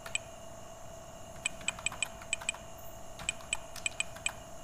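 Computer keyboard being typed on: a single keystroke, a pause of about a second, then two short runs of quick key clicks, over a faint steady hum.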